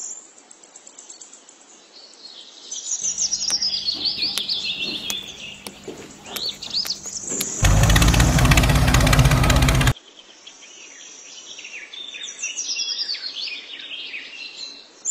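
Birds chirping, with many short rising and falling calls. From about three seconds in, a louder steady noise with a low hum comes in. It swells to its loudest from about eight to ten seconds in and then cuts off suddenly, after which the chirping carries on alone.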